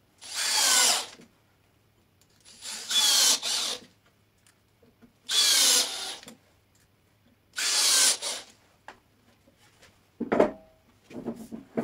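Cordless drill-driver driving screws through a lathe faceplate into a wooden bowl blank: four short runs of about a second each, speeding up in pitch as each screw goes in. Near the end a sharp knock and some small clicks as the screwed-on blank is brought up to the lathe's headstock spindle.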